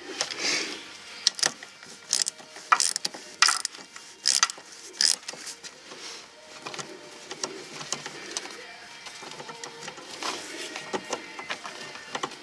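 Irregular small metal clicks and taps as a wire terminal and nut are handled on the field terminal of a 6-volt car generator, several sharp clicks in the first half.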